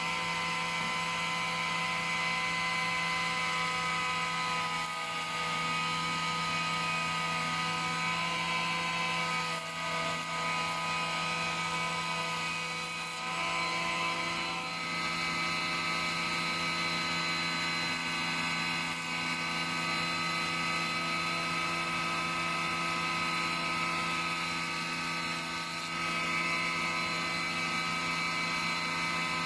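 Surface planer (jointer) running with a steady, even whine while beech boards are passed over its cutter block to plane a straight edge. A few brief dips in level break the run.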